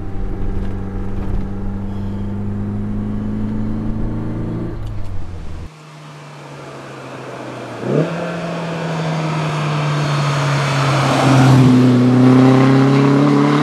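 Lotus Elan twin-cam four-cylinder on twin Mikuni carburettors, pulling steadily under load, its pitch creeping up. About halfway it is heard from the roadside instead, first faint, then coming closer and accelerating: a quick rise in revs and a climbing engine note that grows loudest near the end as the car nears.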